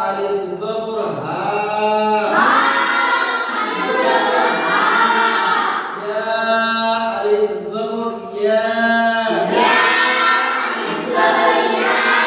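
A class of boys chanting Arabic recitation together in unison, in long drawn-out melodic phrases with short breaks between them.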